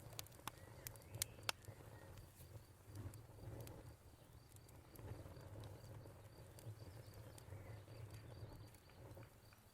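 Faint wood fire crackling, with several sharp pops in the first second and a half over a low steady rumble. A cricket chirps in an even, high-pitched run, most clearly in the second half.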